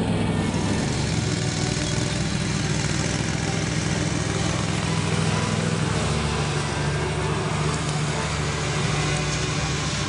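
Ride-on lawn tractor engine running steadily as the tractor drives across grass.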